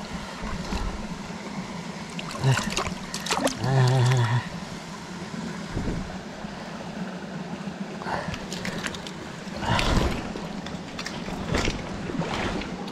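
Mountain stream water running steadily, with splashes and handling noises in the shallows at intervals. A short wavering voice-like sound comes about four seconds in.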